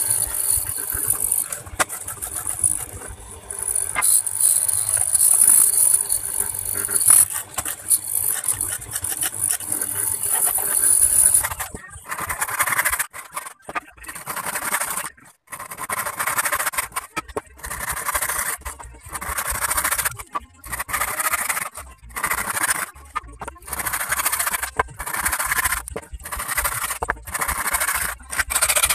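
A wood planing machine running as a wooden board is fed through it, with a steady high hiss. About twelve seconds in it stops and a hand saw takes over, cutting a wooden plank in a steady rhythm of strokes, about three every two seconds.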